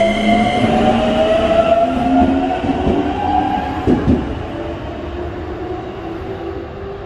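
Keikyū 2100-series electric train pulling out: the traction motor whine rises in pitch as it accelerates over the rumble of wheels on rail. A short knock comes about four seconds in, and the sound then fades as the train draws away.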